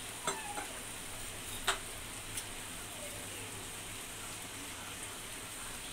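A steel spoon stirring spice paste (chilli, coriander, cumin and garam masala powders mixed with water) in a small steel bowl, clinking against the bowl three or four times in the first two and a half seconds, over a steady hiss.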